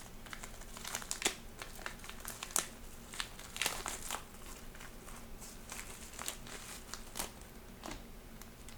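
Plastic packaging crinkling and rustling in the hands as a small flight-controller package is opened, with scattered irregular crackles, busier in the first half and sparser toward the end.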